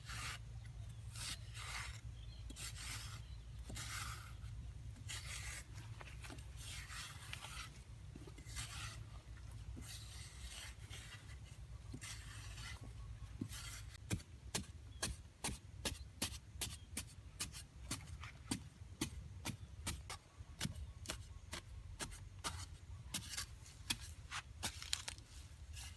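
Hand work on a material: rasping, scraping strokes repeated every second or so, then, about halfway through, a run of sharp clicks and taps, two or three a second, louder than the scraping.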